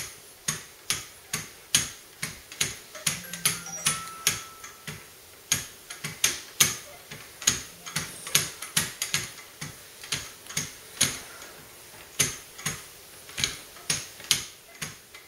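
Leather strop paddles of a Wicked Edge guided knife sharpener stroked alternately up both sides of a clamped knife blade, a sharp click with each stroke, about two a second. This is the final light stropping that finishes the edge.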